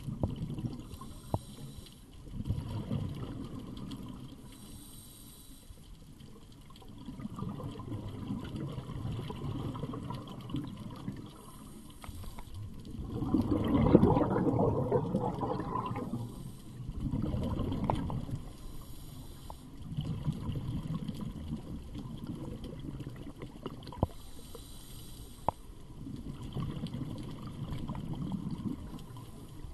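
Scuba divers breathing through regulators underwater: bursts of exhaled bubbles come every few seconds, the loudest about halfway through, with fainter hissing between them.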